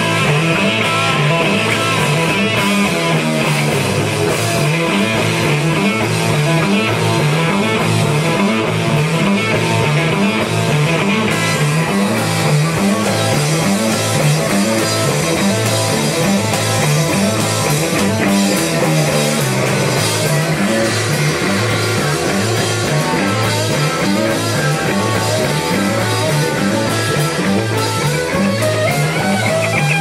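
Live rock band playing loud electric guitars over a drum kit, with a riff repeating in the low end.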